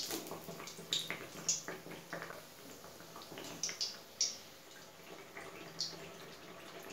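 A malpua of batter frying in hot oil in a kadai: a quiet sizzle with a handful of sharp pops and crackles scattered through it.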